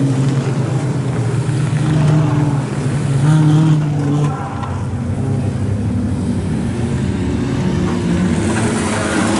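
Junior sedan race cars' engines running hard on a dirt oval, swelling as cars pass about two and three and a half seconds in, then easing to a steady drone as the pack moves away round the track.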